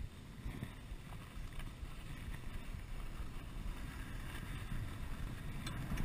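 Skis sliding and scraping over rock-hard, frozen snow, with wind rumbling on the microphone, growing gradually louder as the skier picks up speed.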